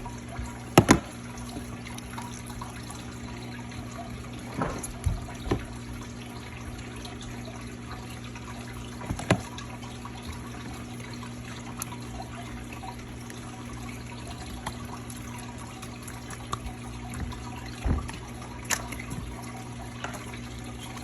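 Slime being kneaded and squished by hand: scattered wet squelches and sharp clicks over a steady low hum.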